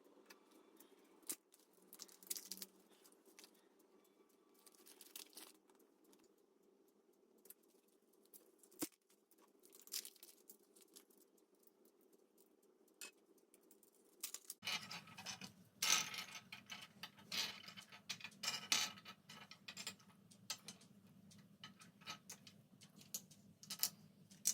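Handling of a Kinder Joy egg's plastic capsule and its small toy: scattered clicks, taps and scratches. The handling gets busier about two thirds of the way in.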